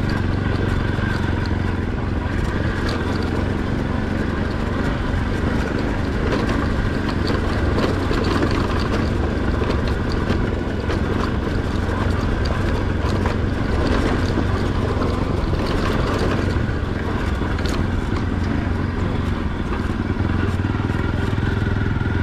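Motorcycle engine running steadily at cruising speed, with road noise over it.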